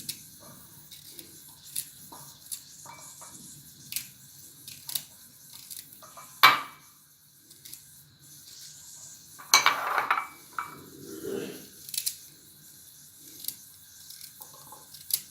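Kitchen knife cutting a radish into small pieces, heard as an irregular series of sharp clicks and knocks of blade and dish. The loudest is about six and a half seconds in, and a cluster comes around ten seconds.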